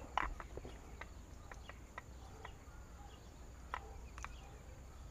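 Faint, scattered small clicks as the horn-button wire connectors on an aftermarket steering wheel are handled and pushed together, over a quiet outdoor background.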